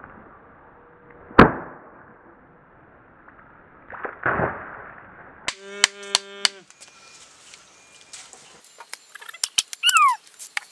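Sharp knocks of a homemade bamboo axe striking a plastic bag of water on a wooden stump, the loudest about a second and a half in, with a short steady tone about halfway and a cluster of clicks and a falling squeak near the end as the bag bursts and spills.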